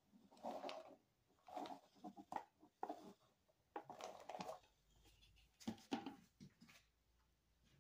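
Faint, irregular soft scraping and dabbing as a small hand tool works the top of freshly poured goat milk soap batter in a paper-lined wooden loaf mold, with an occasional light click.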